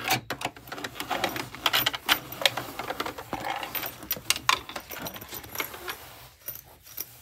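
Domestic sewing machine stitching in short, uneven runs through a bulky fabric bag, with sharp mechanical clicks and fabric rustling; it grows quieter near the end.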